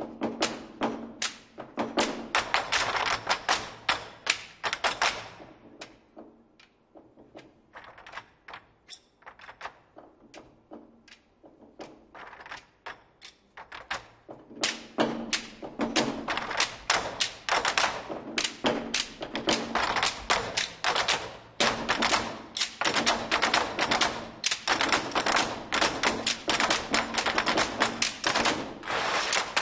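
An ensemble of Chinese barrel drums played with sticks in fast, dense strokes. About five seconds in the drumming thins out to sparse, quieter strokes, then builds back to loud, dense drumming about halfway through.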